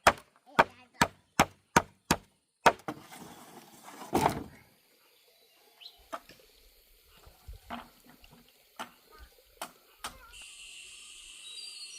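A tool striking wood in a steady run of sharp blows, about two and a half a second, stopping between two and three seconds in. A louder rustling crash follows near four seconds, then a few scattered knocks and a steady hiss from about ten seconds.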